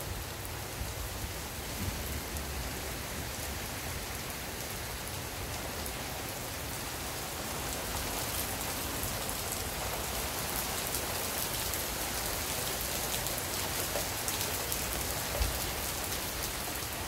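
Heavy rain falling steadily in a downpour, a dense hiss of drops on the ground, foliage and the driveway. It gets a little louder about halfway through. There is a single dull thump near the end.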